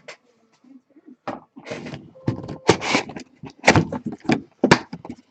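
Cardboard trading-card box being opened and handled: a quick run of knocks, scrapes and rustles beginning about a second in.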